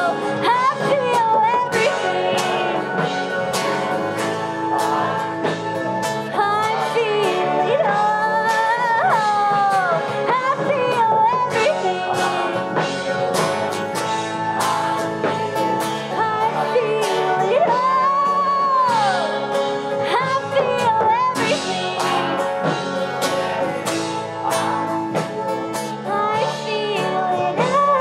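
Live band playing a folk-rock song with electric and acoustic guitars, bass and drums. A melody line with sliding, bent notes rides on top, and a woman's singing voice is heard.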